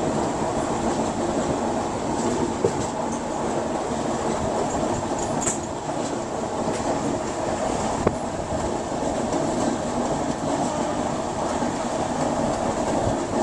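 LHB passenger coaches running at speed, heard from an open coach door: a steady rumble of wheels on rail, with a few sharp clicks from the track and a brief high squeal about five seconds in.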